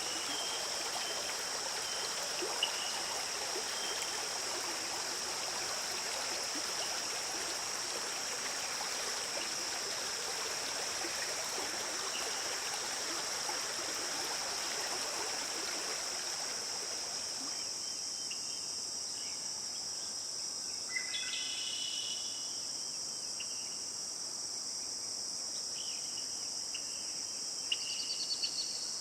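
Forest ambience: a stream flowing, under a steady high-pitched drone of crickets or other insects. About two-thirds of the way through, the water sound stops abruptly. The insect drone and a few short chirps are left.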